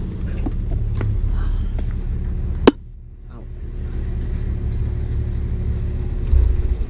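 Toyota Supra engine idling with a steady low rumble while the driver's door is opened. A sharp knock comes about two and a half seconds in, and a heavy thump near the end as the door is shut.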